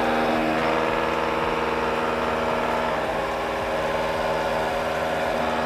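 Silamat dental amalgamator running, shaking a glass hybrid (Equia Forte) restorative capsule at high speed to mix it: a steady mechanical buzz.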